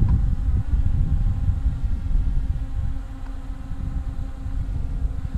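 Steady buzzing hum of a Yuneec Mantis Q quadcopter's propellers in flight, under gusty wind rumbling on the microphone. The wind eases off a little about three seconds in.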